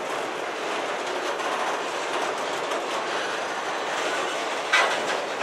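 Freight train of autorack cars rolling past: steady rumble and hiss of steel wheels on rail, with one sharp, loud clack near the end.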